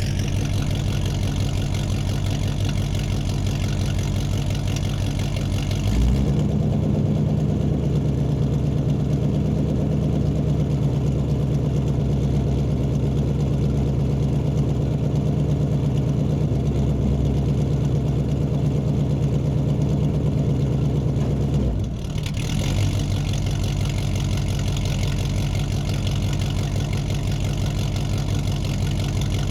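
Muscle car engine idling in a large room, running steadily. About six seconds in its sound turns deeper and loses its upper hiss, and near twenty-two seconds it goes back to the earlier sound.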